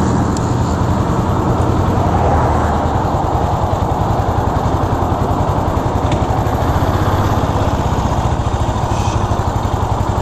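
Suzuki S40's single-cylinder engine running steadily at cruising speed, its fast even pulses under a steady rush of wind and road noise.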